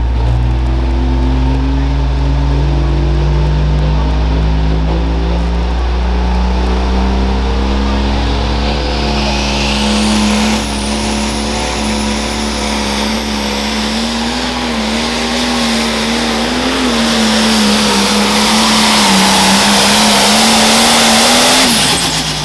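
Super Stock pulling tractor's engine at full throttle dragging the sled, its pitch climbing steadily for about ten seconds and then holding high. A high whistle joins it partway through. Near the end the engine pitch drops sharply as the throttle comes off.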